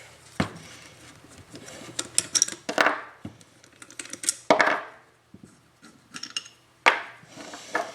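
Metal tool and bolt clinks and knocks, a string of separate sharp strikes, a few ringing briefly, as the bolts on a power steering pump are undone.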